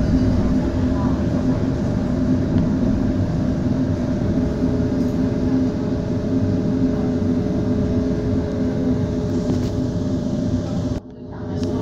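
Interior running noise of an HTM GTL8 articulated tram under way: a steady rumble of wheels on rail with a constant motor hum. The sound drops away sharply for about half a second near the end.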